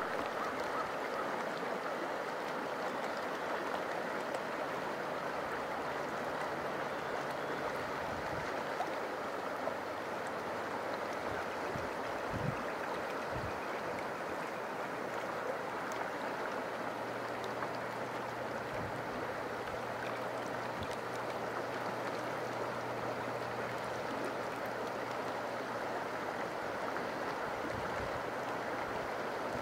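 Shallow river water flowing steadily over rocks and gravel, a continuous even rippling.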